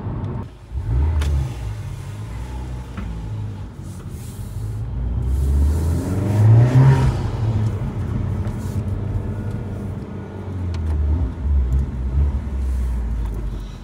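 Honda Civic Type R engine and road noise while driving, the engine rising in pitch to a peak about seven seconds in, then easing off.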